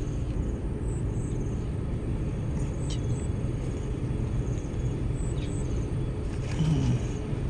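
Steady low rumble, with faint high-pitched chirps every second or two.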